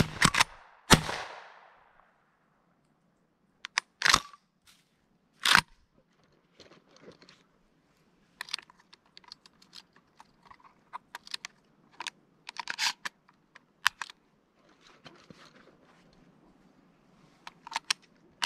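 Shotgun fire at the start, the report about a second in echoing and dying away over the next second. A few sharp knocks and clicks follow, then scattered small crunching and clicking through the rest.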